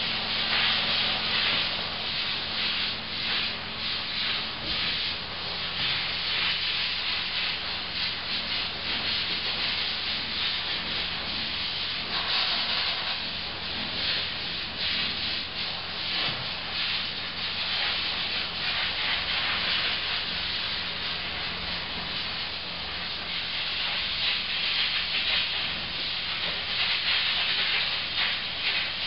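Compressed-air spray guns hissing steadily as they mist chrome spray-plating solution onto a wheel, the hiss growing fuller about twelve seconds in. Beneath it runs the low steady hum of the spray booth's exhaust fan.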